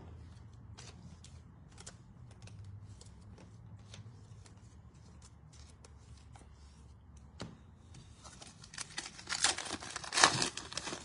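Trading cards being handled, with faint light clicks and slides, then a louder stretch of crinkling and tearing of a card pack wrapper near the end.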